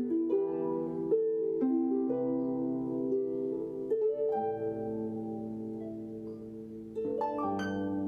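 Harp playing: plucked notes and chords that ring on and overlap, at an unhurried pace.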